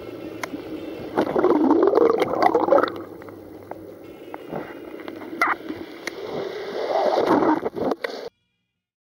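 Water sloshing and splashing close to the microphone, swelling twice with a few sharp drip-like ticks, then cutting off abruptly.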